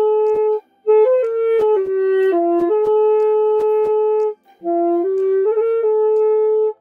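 Yamaha YAS-280 student alto saxophone playing a slow melody of held notes, with short pauses for breath about half a second in and again past the middle. Sharp key clicks sound along with the note changes.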